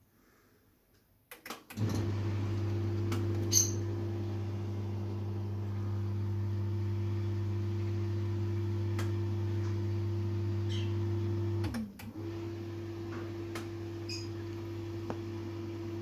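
Siemens dishwasher starting with a few clicks, then running with a steady motor hum. About twelve seconds in the hum dips, sliding down in pitch, then starts again. This is the machine's fault: it hums but does not wash.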